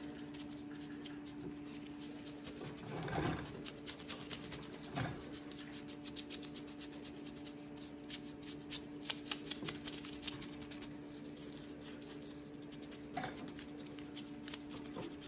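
Wide bristle paintbrush dry-brushing white acrylic latex paint over a cast concrete statue: light, scratchy strokes and rubs in uneven bursts, over a steady low hum.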